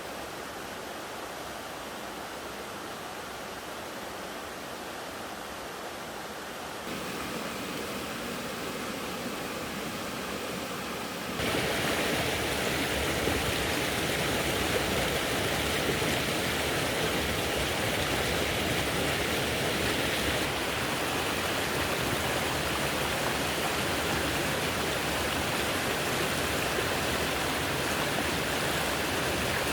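A stream running steadily, with an even rushing of water. It gets louder in two steps: a little about seven seconds in, then more sharply about eleven seconds in.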